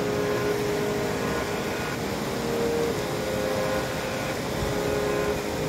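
Steady rushing noise of a river in flood, with a few faint held musical notes over it that change every second or two.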